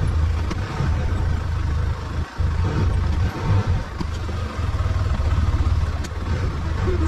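Arctic Cat side-by-side UTV engine running steadily, with a brief drop in sound a little over two seconds in.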